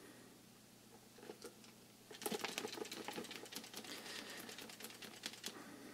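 A plastic syringe drawing the last ink and air out of a nearly empty Epson ink pouch. About two seconds in comes a quick, irregular run of small clicks and crackles lasting about three seconds, then it tails off.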